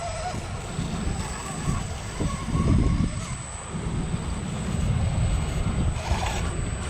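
Wind buffeting the microphone: a low, irregular rumble, with a faint steady high whine underneath.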